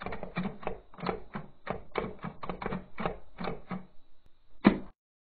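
Typewriter sound effect: a run of keystrokes at about four a second, then after a short pause one louder strike, after which it stops.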